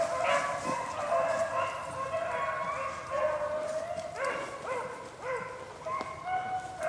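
A pack of beagles baying as they run a rabbit's scent trail, several hound voices overlapping in a steady chorus of drawn-out, falling notes.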